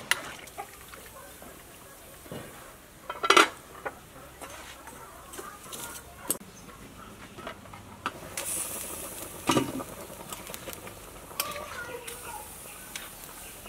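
Metal ladle stirring and clinking in an aluminium soup pot over a wood fire, with a few sharp metal clanks as pot and lid are handled, the loudest about three seconds in. A hiss rises from about two-thirds of the way through, from the simmering pot and fire.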